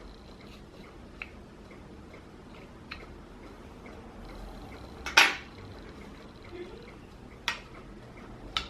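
A small plastic toy money box being handled, giving a few sharp clicks and knocks spread out over several seconds. The loudest knock comes about five seconds in, and the last two come near the end.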